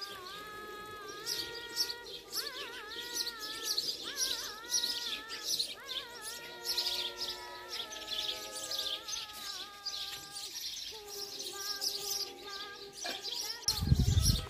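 Small birds chirping steadily over soft background music of long held melodic notes. Near the end comes a brief low rumble.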